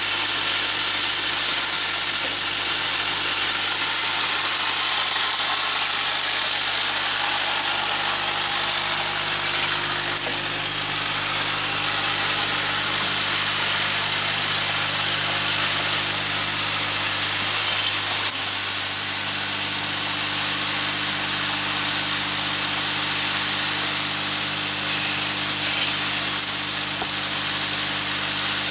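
MK1040 centerless grinder running steadily: a constant motor hum under the hiss of the wheel grinding bolts. Faint short clicks come about every eight seconds.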